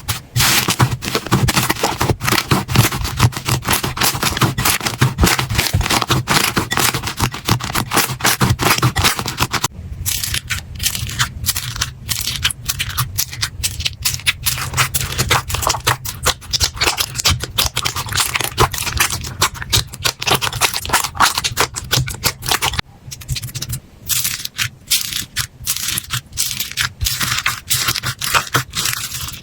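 Slime being squeezed and pressed by hand, giving a dense run of crackling, popping clicks. The texture changes abruptly about ten and about twenty-three seconds in, as one slime clip gives way to the next.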